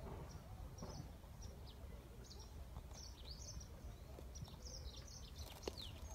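Small birds chirping: many short, high, quick calls one after another, over a low steady rumble. There is one sharp click about five and a half seconds in.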